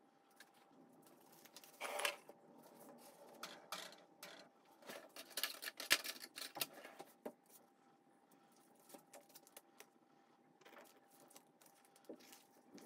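Light kitchen handling sounds: rustling and clicks as a wrapped block of butter is handled and set into a glass bowl of flour. They are thickest about two to seven seconds in, with a few fainter clicks near the end as a knife cuts the butter. A faint steady hum lies under it all.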